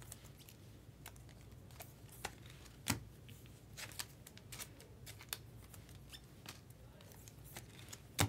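Trading cards being handled and slid into a clear plastic sleeve: a scatter of faint clicks, taps and light plastic rustles, with a sharper tap about three seconds in and another near the end, over a steady low room hum.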